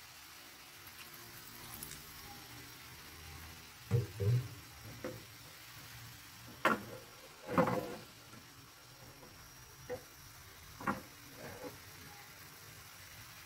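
Chicken simmering in a soy-sauce-and-Sprite sauce in a wok: a faint, steady sizzle, broken by a handful of short knocks and bumps.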